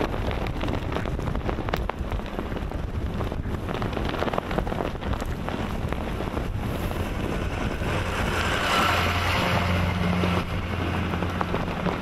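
Gusty blizzard wind buffeting the microphone, with a steady rush and crackle of blowing snow. About eight seconds in, a snowplow truck passes, adding a low engine drone and a louder rush of noise for a few seconds.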